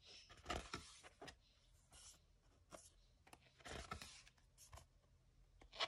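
Pages of a thick-card postcard book being turned by hand: a few soft paper rustles and flaps, with a sharper flick near the end.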